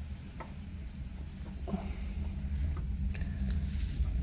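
A few faint taps and scrapes of a hand working a spin-on oil filter on a Suzuki Carry kei truck, over a steady low rumble.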